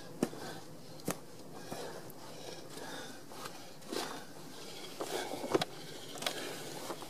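Loose stones and gravel being handled and stepped on: scattered faint clicks, knocks and short scrapes at irregular intervals.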